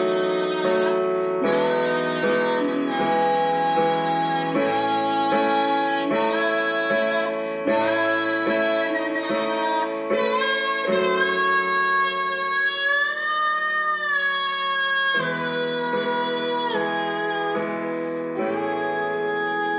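Music: a woman singing over plucked guitar, holding one long note about halfway through.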